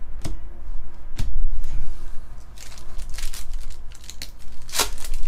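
A stack of chromium trading cards handled and shuffled in the hands: two sharp clicks early, then short sliding, scraping swishes of card against card, the loudest just before the end.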